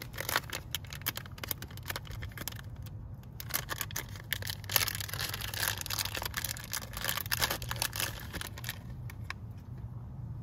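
Crinkling and rustling of a clear plastic packaging bag being handled and pulled open by hand, a dense run of crackles that thins out near the end. A low steady hum runs underneath.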